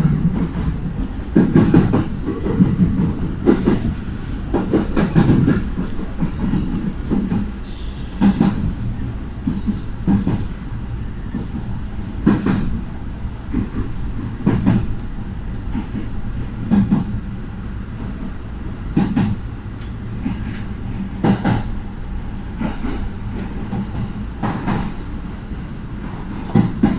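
Train running on jointed track: a steady low rumble with the wheels clacking over the rail joints about every two seconds.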